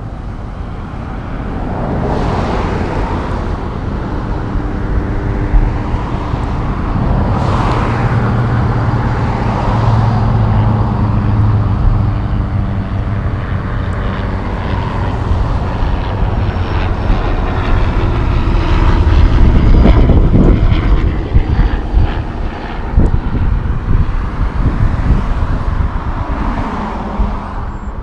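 Heavy diesel engine of a Kenworth T880 tri-drive slinger truck running. It grows louder to a peak about two-thirds of the way through, then eases off.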